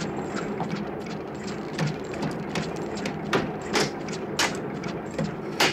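Iron bars prying at the lid of a wooden crate: a string of sharp knocks and cracks of wood, irregular, about half a dozen in the second half, over steady rumbling background noise.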